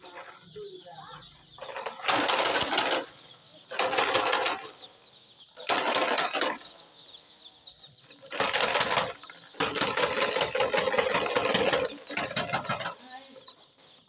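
A crowd of day-old chicks peeping, a steady high-pitched chorus. Six loud bursts of harsh rustling noise, each about a second long and the loudest thing here, break in over it from about two seconds in.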